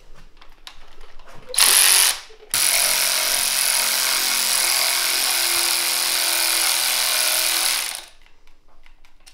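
Cordless drill-driver with a socket extension running, backing out the oil filter cover fasteners on a BMW R80 GS air-cooled boxer engine: a short whir of about half a second, then one steady run of about five and a half seconds.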